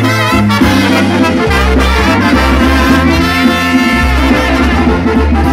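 A live brass band playing tropical music: trumpets and trombones carrying the melody over bass and drums, loud and continuous.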